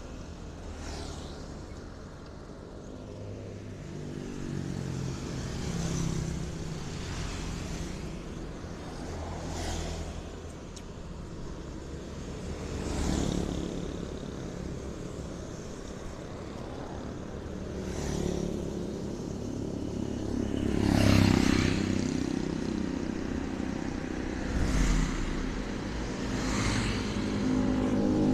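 Street traffic: motor vehicles passing one after another over a steady low rumble, the sound swelling several times as they go by and loudest about two-thirds of the way through.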